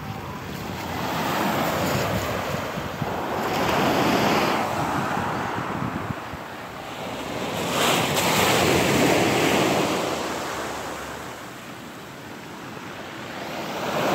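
Small waves breaking on a pebble beach and washing up and back, the backwash dragging the stones below with a light rattle. The surf swells and fades in surges about every four to five seconds.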